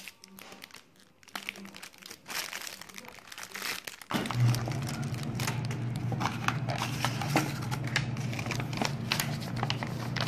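Clear plastic wrapping crinkling as a wrapped camera case is handled and unwrapped, in irregular crackles. A steady low hum starts about four seconds in and continues under it.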